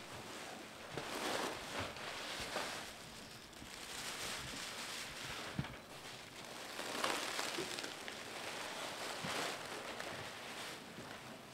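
Plastic bags rustling and crinkling in irregular swells as they are handled and brushed against on a carpeted floor, with a single knock about halfway through.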